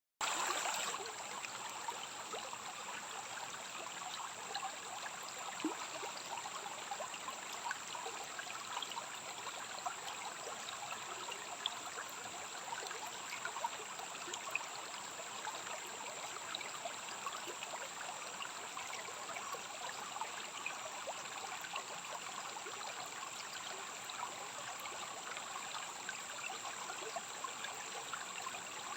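Stream water flowing with a steady rushing and babbling, with a thin steady high-pitched tone held above it.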